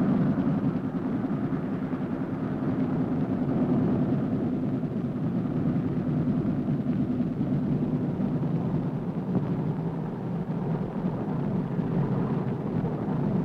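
Steady drone of a B-29 Superfortress's four radial piston engines in flight, muffled, with little treble, as on an old film soundtrack.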